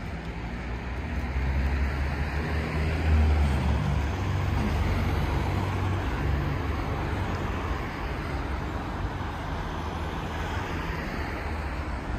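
Street traffic: a motor vehicle's engine hum and tyre noise pass close by, loudest about three seconds in, then slowly fading under the steady noise of the road.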